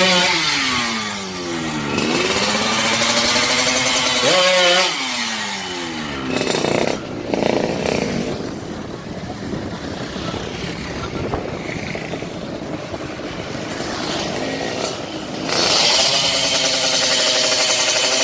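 Yamaha RX-King two-stroke single-cylinder motorcycle engine being revved: its pitch falls and rises with the throttle, with a quick rev about four and a half seconds in. It drops to a lower, rougher running for several seconds, then holds a steady higher rev near the end.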